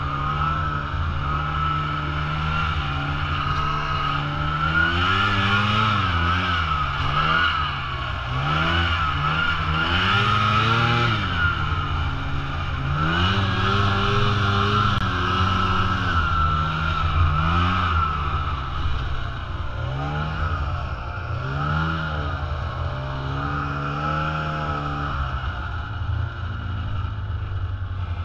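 Snowmobile engine heard from the rider's seat while riding through snow. Its pitch rises and falls again and again as the throttle is opened and eased off, over a steady higher whine.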